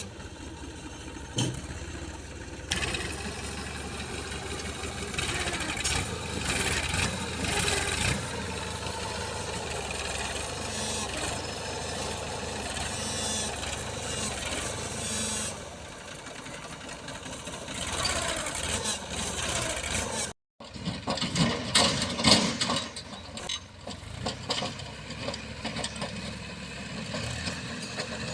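Diesel engines of a working JCB 3DX backhoe loader and a New Holland tractor running steadily, with scattered knocks from the work. The sound cuts out for a moment about two-thirds of the way through, and a few louder bangs follow.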